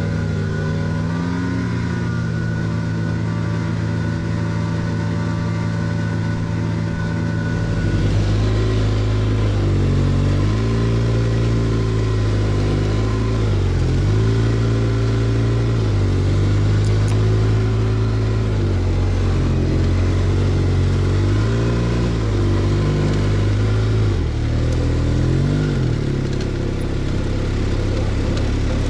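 Car engine running while driving, getting louder about eight seconds in; after that its pitch rises and falls every couple of seconds as the revs change.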